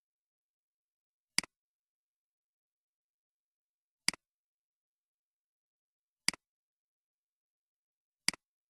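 Four computer mouse clicks, two to three seconds apart, each a sharp click with a quick second tick, in dead silence.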